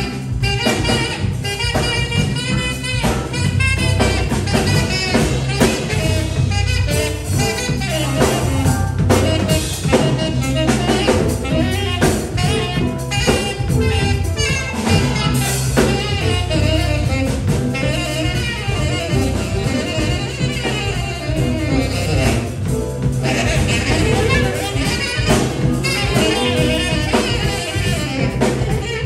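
Live jazz combo playing: a saxophone leads with an improvised line over a drum kit and electric keyboard.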